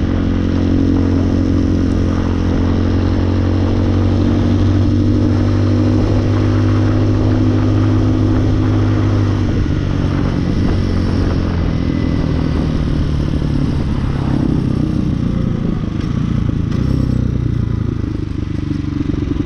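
Hawk 250cc street-legal dirt bike's single-cylinder four-stroke engine running while riding. The note is steady for the first half, then turns uneven and wavering about halfway through.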